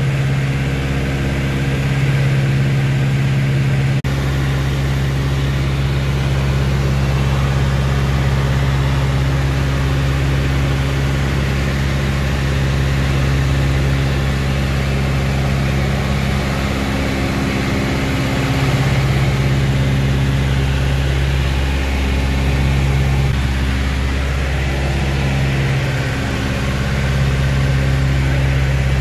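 A Beechcraft 18's twin radial piston engines and propellers in cruise flight, heard from inside the cockpit: a loud, steady, multi-toned engine drone that wavers slightly now and then.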